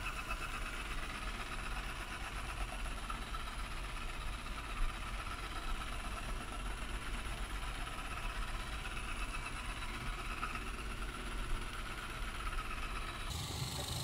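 Ecovacs DEEBOT T9+ robot vacuum-mop running while it vacuums and mops a hard floor: a steady whirring hum of its suction motor and brushes. The tone shifts abruptly near the end.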